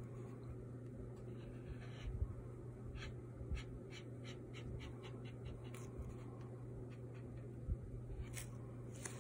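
Ink marker scratching quick short hatching strokes on paper, about a dozen in a row at roughly four a second a few seconds in, with a few single strokes elsewhere. A faint steady low hum lies underneath.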